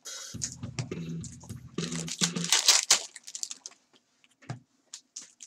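Trading-card packs being opened and cards handled: crinkling and tearing of the wrappers and quick clicks of cards flicked through one after another, thinning to a few scattered ticks in the second half.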